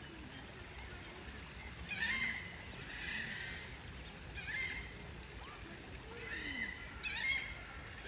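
Black-necked swans calling: about five short, high whistling calls spaced unevenly, over a low steady outdoor background.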